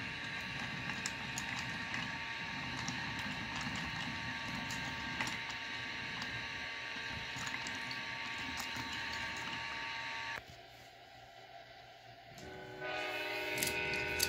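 Electronic train sound effects played through a toy wooden train set's small speaker: a recorded train with steady horn-like tones and scattered clicks that cuts off suddenly about ten seconds in, then another horn sound starts near the end.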